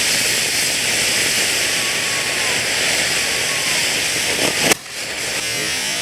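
Ground fountain firework spraying sparks with a steady, loud hiss. A single sharp crack comes after about four and a half seconds, and a softer hiss follows.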